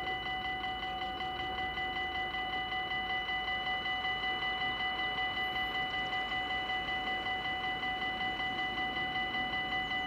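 Dutch railroad crossing bell ringing in rapid, even strokes while the crossing is closed, barriers down and red lights flashing.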